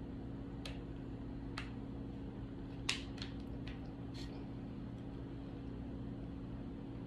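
A few faint clicks and taps of a Smith & Wesson SD9 VE pistol being handled as its takedown tabs are pulled down to free the slide, the loudest about three seconds in, over a steady low hum.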